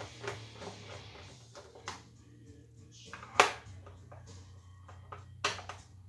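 Hand screwdriver turning out the screws on the plastic top cover of a pancake air compressor: light clicks and scrapes of the tool in the screw heads, with a sharp click about three and a half seconds in and another near the end.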